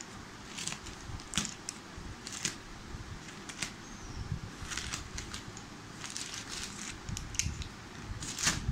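Plastic courier bag crinkling and crackling as it is torn open, with irregular sharp snaps.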